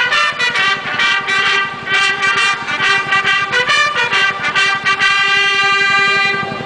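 A massed bugle ensemble of the Japan Ground Self-Defense Force sounding a field signal call. It plays quick repeated notes, then one long held note about five seconds in. These bugle signals are used to pass commands to troops in combat.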